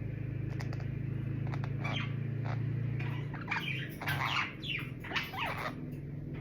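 Small pet parakeets calling with short, rising squawks and chirps, mostly in the second half, with a few light clicks. A steady low hum in the background fades about three and a half seconds in.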